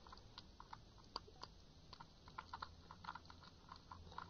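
Faint, irregular light clicks and taps of a pen stirring soft soap in a small glass bowl, the pen knocking against the glass.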